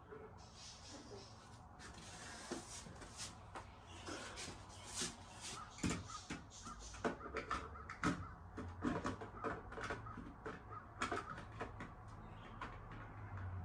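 Irregular faint clicks, knocks and scrapes of plastic smoke alarm parts being handled and fitted by hand.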